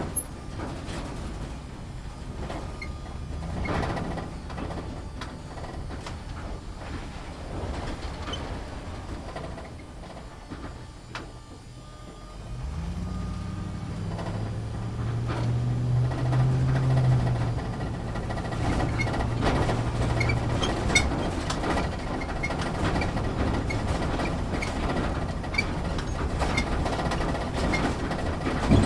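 Inside an off-road vehicle driving over rough ground: the engine runs with a low rumble while the body and fittings rattle and knock. About twelve seconds in the engine drops away briefly, then picks up again with a rising note and holds under load.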